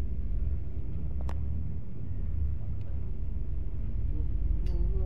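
Steady low rumble of a vehicle's engine and road noise heard from inside the cabin as it rolls slowly along, with a sharp click about a second in.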